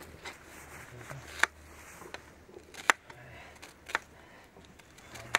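Sharp clicks, four clear ones roughly a second apart with fainter ones between, over a low steady hum.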